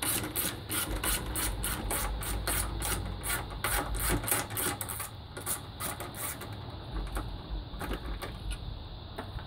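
Hand ratchet wrench clicking rapidly, about four or five clicks a second, as a 13 mm bolt on a fender-to-radiator-support bracket is backed out. The clicks thin out to scattered ones about halfway through.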